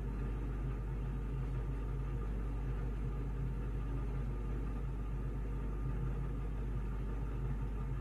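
Steady low hum of background room noise, unchanging and without distinct sounds.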